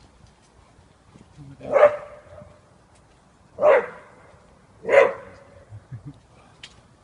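A dog barks three times, short loud barks about one to two seconds apart.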